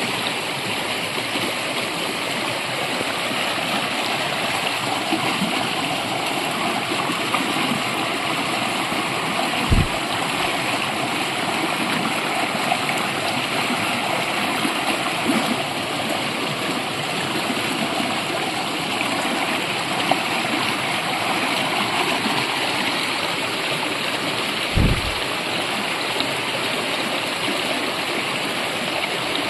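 A brook running: a steady rush of water, with two brief low thumps about ten and twenty-five seconds in.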